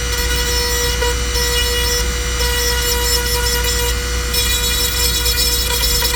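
Dremel rotary tool running at a steady high-pitched whine, used to grind away bumper plastic.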